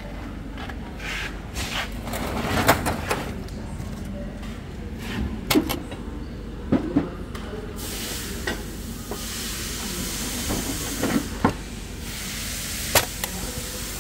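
Body-shop workshop noise: scattered knocks and clanks through the first half, then a steady high hiss starting about halfway through, with a few more knocks over it.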